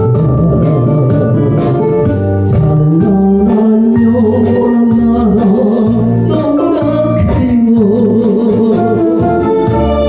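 A singing voice holding long notes with vibrato over sustained electronic organ chords and a low bass pulse.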